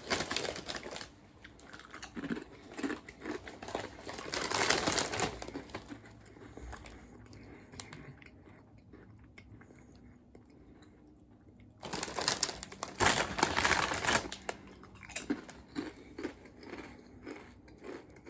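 Crunchy potato chips being crunched and chewed, with the crinkle of the chip bag. Louder stretches of rustling and crunching about four seconds in and again around twelve to fourteen seconds, with small crunches in between.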